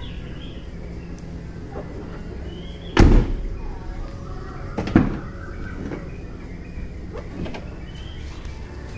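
Car rear door swung open and shut by hand, with a loud knock about three seconds in and another sharp knock about two seconds later, then lighter knocks. The door's check strap is worn, so the door swings loose instead of holding its position.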